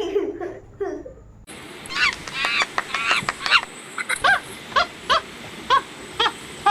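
Monkey calls played as an animal sound effect: a run of short, harsh, pitched calls starting about a second and a half in, settling into about two calls a second.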